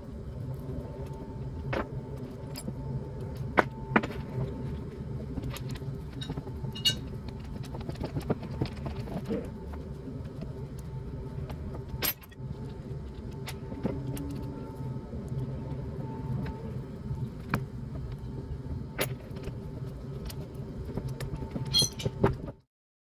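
Metal tools and parts clinking and clicking now and then, a few with a short metallic ring, over a steady low mechanical hum; the sound cuts off abruptly near the end.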